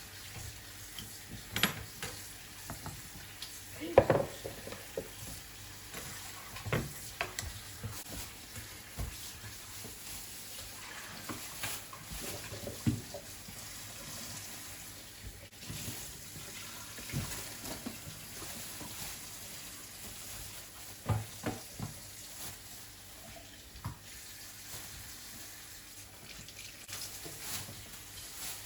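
Scattered knocks and clinks of things being handled in a kitchen, over a faint steady hiss. The sharpest knock comes about four seconds in.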